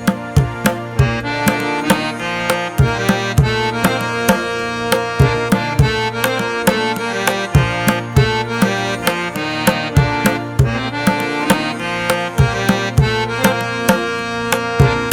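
Background music: pitched instruments over a steady beat of hand-drum strikes.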